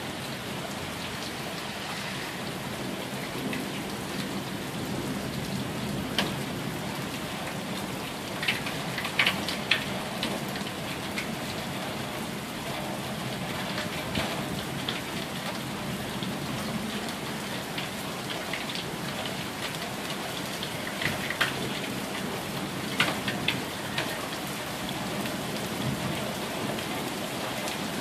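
Steady thunderstorm rain falling on a wet street and lawns, with brief sharp clicks of drops here and there, in clusters twice.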